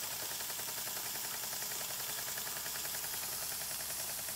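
Small model steam engine running fast on steam from a copper kettle boiler: a rapid, even ticking from the engine over a steady hiss of steam, some of it leaking from the kettle's nozzle.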